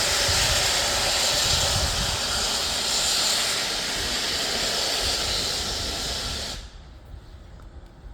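Steam locomotive letting off steam: a loud, steady hiss that cuts off suddenly about six and a half seconds in.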